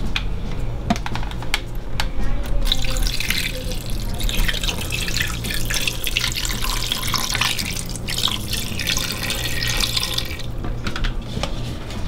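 Water pouring into the stainless steel inner pot of an Instant Pot electric pressure cooker, splashing steadily onto raw pork pieces. It starts about three seconds in and stops near the end, after a few light clicks at the start.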